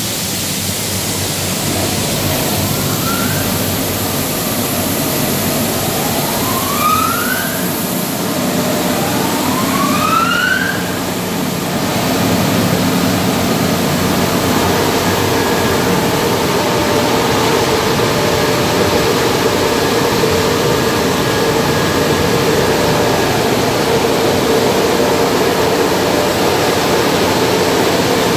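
MacNeil tunnel car wash equipment running: a steady hiss of water spray and machinery, with three short rising whines in the first ten seconds or so. From about twelve seconds it becomes a louder, steady drone with a low hum, the sound of the dryer blowers running.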